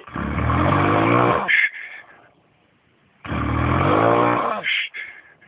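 A person snoring loudly and heavily: two long, low snores about three seconds apart, each ending in a brief higher-pitched snort.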